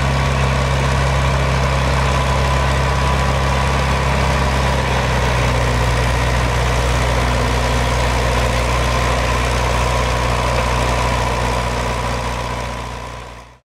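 Nuffield 10/60 tractor engine running steadily at low speed, fading away near the end.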